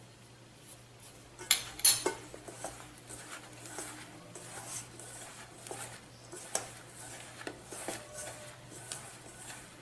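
Hands rubbing and crumbling damp red rice flour in a stainless steel bowl, working hot water evenly through it for puttu: a soft rustle with scattered light taps against the bowl. Two sharp clinks of metal come about a second and a half in, the loudest sounds.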